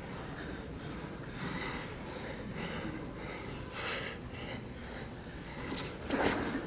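Breathing of jiu-jitsu grapplers straining on the mat over a steady low room hum, with a louder short burst of noise about six seconds in.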